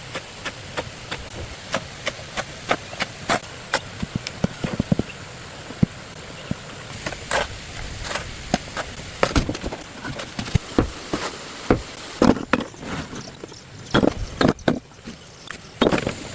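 A run of sharp knocks and taps at an uneven pace: about two a second at first, then bunching into quick clusters in the second half, over a steady hiss.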